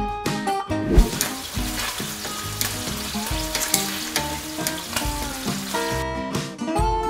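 Thin slices of marinated beef sizzling as they fry in a stainless steel pan and are turned with metal tongs, with guitar music underneath. A knock comes about a second in as the sizzling starts, and the sizzling drops away near the end, leaving the music.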